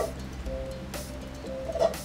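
Background music with steady held tones, and near the end a brief scrape and knock of a wooden spoon against the inside of a cooking pot as sauce is scooped out.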